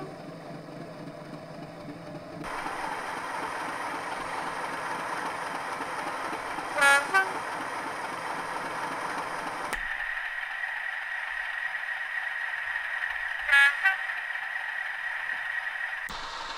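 Class 37 diesel locomotive sound from a DCC sound decoder played through small model-railway speakers: the English Electric engine running steadily, with short horn toots twice, in the middle and about two-thirds of the way through. The tone changes abruptly three times as playback switches to a different speaker, one of which gives a thin sound with no bass.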